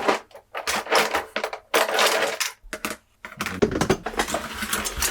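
Rummaging through a drawer of small metal tools and parts: irregular clattering and rattling, broken by short pauses.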